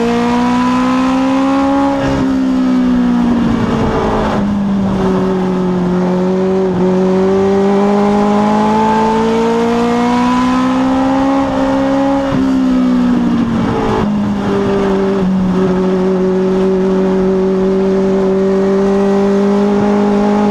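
Legends race car's Yamaha motorcycle engine at racing speed, heard from inside the cockpit. Its pitch climbs along the straight and falls as the driver lifts for a turn about two seconds in. It climbs and lifts once more about twelve seconds in, then holds fairly steady.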